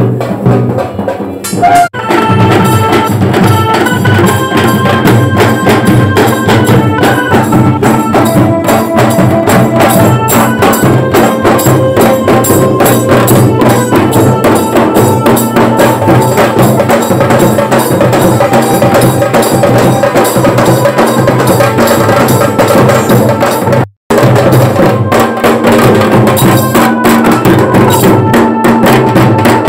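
Bengali wedding band party playing loudly: a held melody line over dense, driving drums, recorded on a phone mic. The sound cuts out for a split second about four-fifths of the way through.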